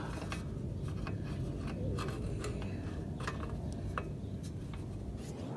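Wind rumbling on a phone microphone, with a few scattered clicks and scrapes as hands work on generator parts.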